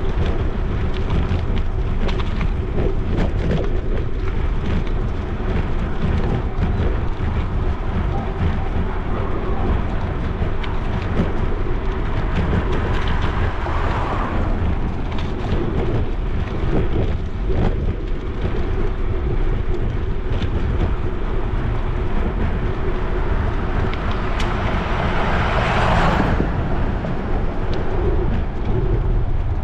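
Wind rumbling on the microphone of a handlebar- or helmet-mounted action camera as a bicycle rolls along a paved street, with small ticks and rattles throughout. A brief louder swell of hiss comes midway and again near the end.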